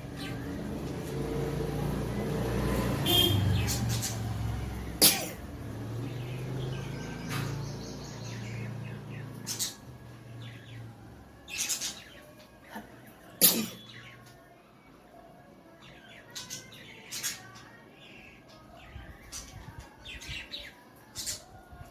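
A person with a heavy cold blowing their nose hard for a few seconds, then a run of short, sharp snorting or sniffing sounds spaced a second or two apart.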